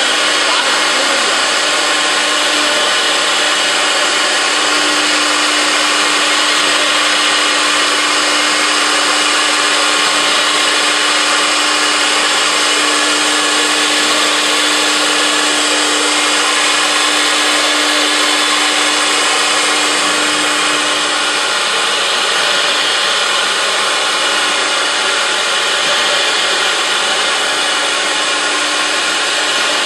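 Four-spindle CNC router cutting a wood panel: the spindle and router bit run at a steady, loud pitch over a constant rushing cutting noise.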